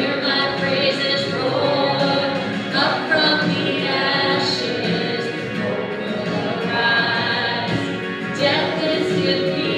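A choir singing a hymn, several voices together in sustained harmony.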